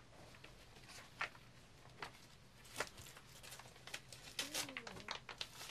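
Bedding rustling and brushing as a blanket is smoothed flat and a bedspread is pulled over and tucked in, with faint scattered ticks and swishes of fabric.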